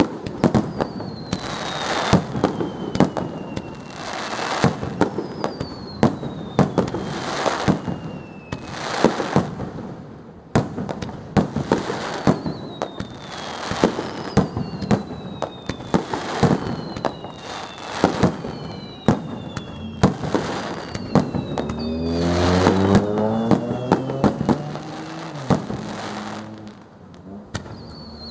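Fireworks display: a steady run of bangs and crackling bursts, with whistles that fall in pitch, heard again and again. About two thirds of the way through, a low pitched tone rises for a few seconds among the bursts.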